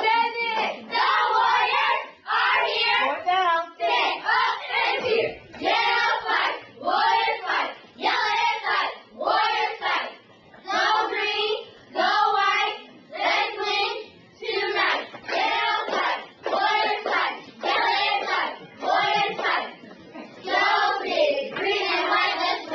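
A group of young cheerleaders chanting a cheer in unison, one shouted phrase about every second in a steady rhythm, with hand claps.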